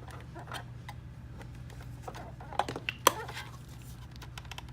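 Plastic locking tabs on a car navigation head unit's faceplate being pried apart: a few sharp clicks and snaps about two and a half to three seconds in, the loudest near three seconds, over a steady low hum.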